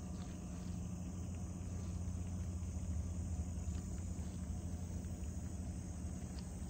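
Outdoor ambience: a steady low hum with faint insect chirring above it.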